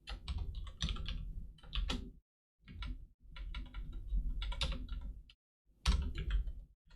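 Computer keyboard typing: rapid key clicks in three runs, broken by two short pauses.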